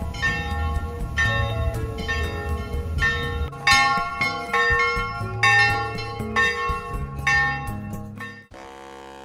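Church bells ringing: a run of strikes on several pitches that grows louder about a third of the way in, then drops to a faint ring that dies away near the end.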